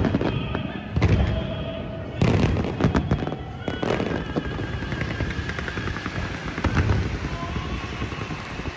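Fireworks display: a rapid string of aerial shell bursts, bangs and crackling, with several heavier blasts in the first few seconds.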